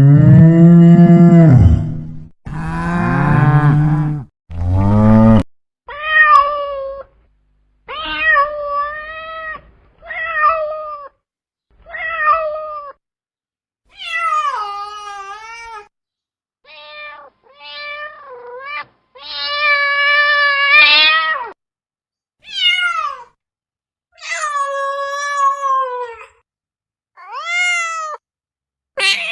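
A cow mooing three times, low and drawn out, then a domestic cat meowing over and over, about a dozen meows of varying length, some rising and falling in pitch.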